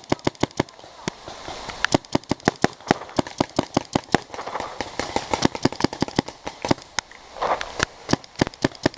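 Paintball markers firing in a game: a rapid, irregular stream of sharp pops, several a second, from more than one gun.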